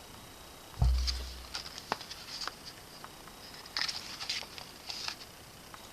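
A thump about a second in, then paper and packaging rustling and crinkling with light clicks, in two bursts, as the contents of a K-pop album are handled.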